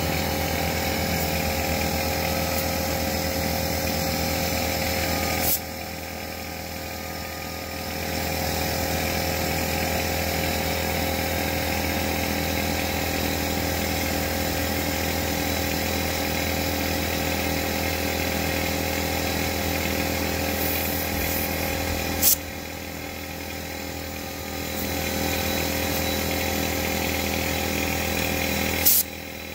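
Air compressor running steadily while a car tyre is filled with air at the valve stem. Three sharp clicks break it: one about five seconds in, one about 22 seconds in and one near the end, each followed by a few seconds of quieter running before the sound builds back up.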